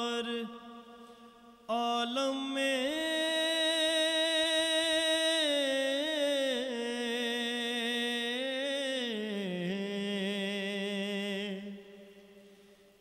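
A man singing an Urdu naat into a microphone, drawing out one long melismatic note with a wavering pitch. The note starts about two seconds in after a short pause, slides lower near the end and fades away.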